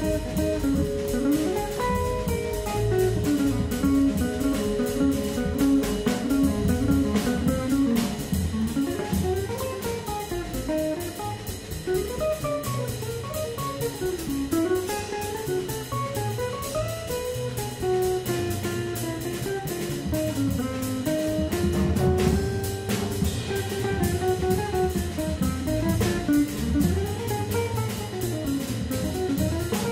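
Live jazz: a semi-hollow electric guitar takes the lead in flowing single-note bebop lines, over upright bass and a drum kit with steady cymbal time.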